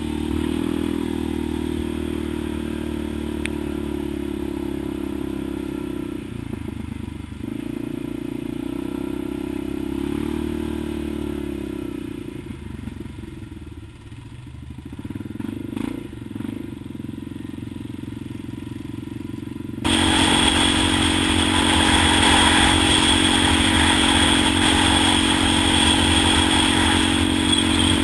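ATV engine running steadily, heard from on board the machine, with some clatter from riding over rough ground. The engine sound eases off for a few seconds in the middle, then about twenty seconds in it jumps suddenly louder, with a harsher rushing noise over the engine.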